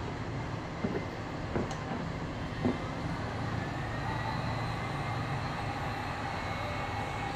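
Ingco heavy-duty heat gun running with a steady rush of air and a motor hum, its whine rising in pitch about two and a half seconds in and then holding steady. A few light clicks come in the first few seconds.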